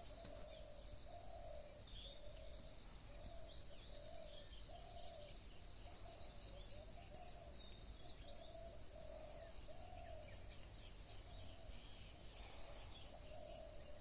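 Faint countryside ambience: a bird repeats a short low call about once a second, pausing briefly near the end, over a steady high insect buzz and a few thin bird chirps.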